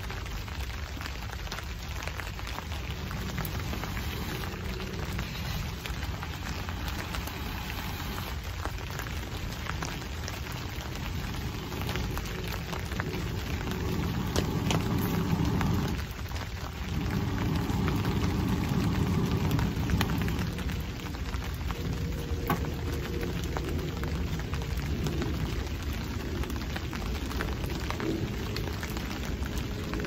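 Steady rain pattering on a tarp, with scattered drips, while breath is blown through a fire-blowing pipe into a small wood-burning stove. The blowing comes in louder stretches about halfway through, with a short break between them.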